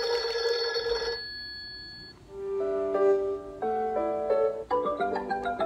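Built-in alarm sounds of a Vivilumens sunrise alarm clock playing through its small speaker as they are stepped through one after another. First comes a telephone-like ringing that stops about a second in. Then a simple tune of held notes, and from about five seconds in a busier melody.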